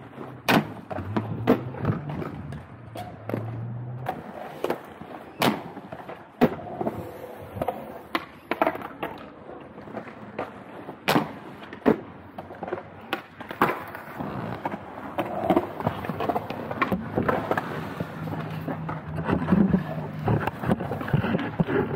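Aggressive inline skates rolling on a concrete skatepark, with a series of sharp clacks and knocks from skate landings and contact with the concrete ledge.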